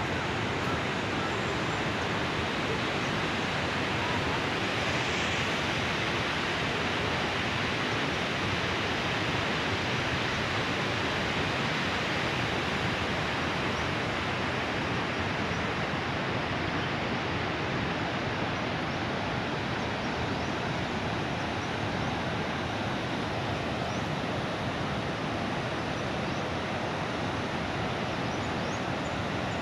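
Steady rushing of a flooded mountain river, muddy water pouring across a wide stony bed.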